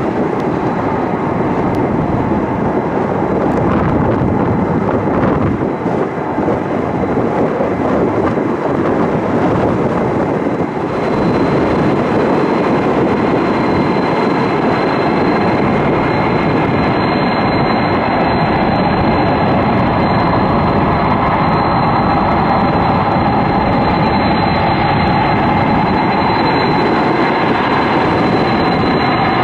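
Boeing 747-400F taxiing, its four turbofan jet engines at taxi power: a loud, steady rumble. A thin high whine joins about a third of the way in.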